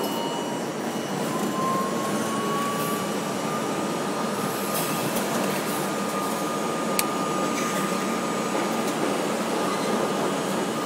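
New York City subway train running underground, heard from inside the car: a steady rumble and rattle of wheels on rail, with a motor whine that rises in pitch over the first few seconds as the train picks up speed and then holds steady.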